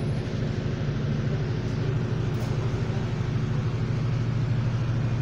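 Diesel engine of roadworks plant running steadily, a low even hum that grows louder near the end.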